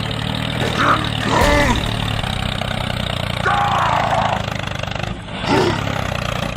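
Tractor engine running steadily, with a few short voice-like calls over it.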